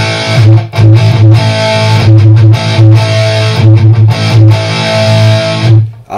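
Electric guitar through a Fender Mustang GTX100 modeling amp on its Uber Metal high-gain preset: a heavily distorted A chord struck over and over, loud, then choked off near the end.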